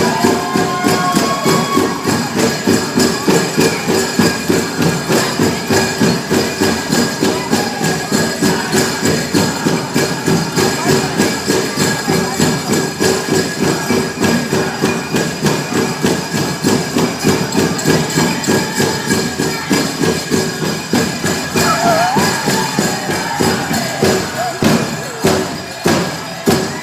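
Powwow drum group playing for a chicken dance: a fast, even beat on a big drum under the singers' high voices, with bells jingling. Near the end the beat breaks into a few harder, spaced strikes.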